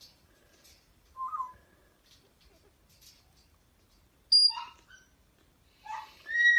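Miniature dachshund puppies squeaking and whimpering in their sleep: three short, high squeals, one about a second in, one around four and a half seconds in, and a longer rising one near the end.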